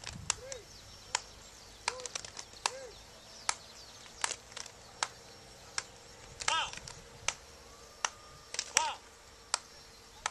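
Irregular sharp smacks, a few a second at most, from a group of players in a warm-up drill. Short shouted calls come about six and a half and nine seconds in.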